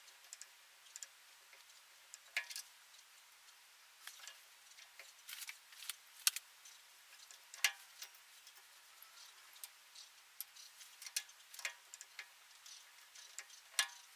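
Faint, irregular metallic clicks and ticks as a small 8-32 tap is turned by hand in a tap handle, cutting threads into holes in a 4140 steel bar.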